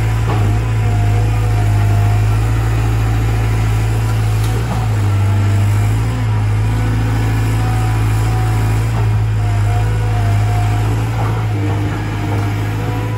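Caterpillar 320 GC hydraulic excavator's diesel engine running steadily under load with a strong low hum, and a higher whine from the hydraulics that wavers in pitch as the arm works. A few short knocks of brush and debris being handled break in.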